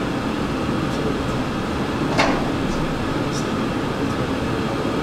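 Steady hum and hiss of room background noise in a hall, even throughout, with one short sharp click about two seconds in.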